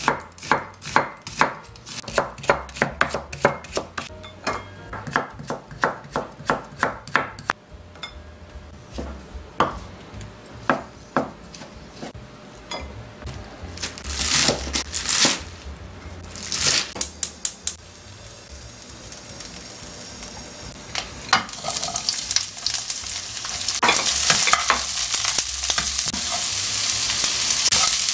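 A kitchen knife chops through an onion on a wooden cutting board in a steady run of knocks, about two a second. Sparser, louder cuts go through a bunch of garlic chives. From about 21 seconds in, sliced onion and carrot sizzle in a hot wok as they are stir-fried with a wooden spatula, and the sizzling grows louder toward the end.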